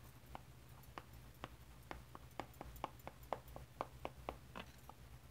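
Oil pastel stroking back and forth on paper: a quick, irregular run of faint short scratches and taps, several a second.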